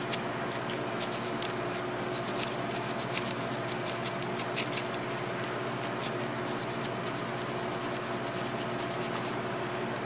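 Rapid scratchy scrubbing strokes of a cotton swab working baking soda paste into a corroded battery terminal, starting about two seconds in and stopping near the end. A steady low hum runs underneath.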